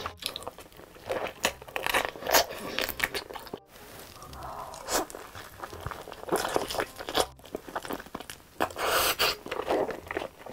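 Close-miked crunching and chewing of sauce-glazed spicy fried chicken: repeated crisp bites into the fried coating, with two very brief drops to silence partway through.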